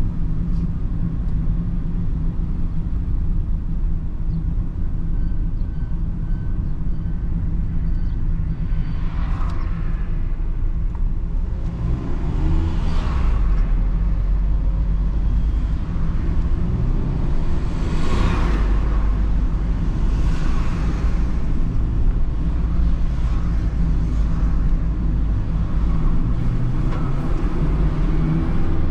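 Mazda Roadster (ND MX-5) on the move: steady low engine and road rumble from the car. Several brief swells of rushing noise rise and fade over it, the strongest about 18 seconds in.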